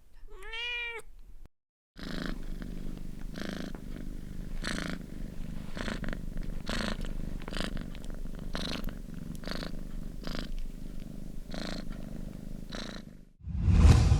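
A domestic cat's single short meow, rising then falling in pitch. After a brief break comes a steady purr that pulses with the cat's breathing about once a second. Near the end a short, loud, low burst cuts in, the loudest sound here.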